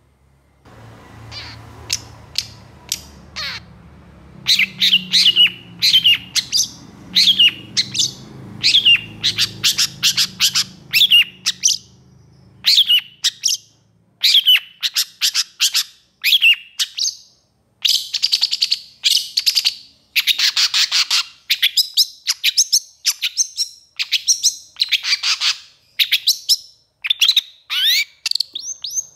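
Long-tailed shrike (pentet) calling in agitation: loud, harsh notes that sweep sharply down in pitch, about one or two a second, packing into rapid chattering runs over the second half. A low hum sits underneath for roughly the first dozen seconds.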